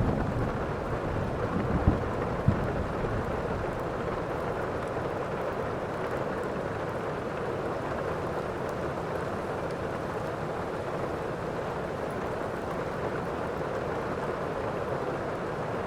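Steady heavy rain, with the tail of a thunder rumble dying away over the first few seconds and two sharp cracks about two seconds in.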